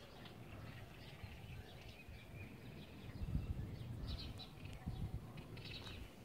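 Faint bird chirps, short and scattered, over a low, uneven rumble of wind buffeting the microphone.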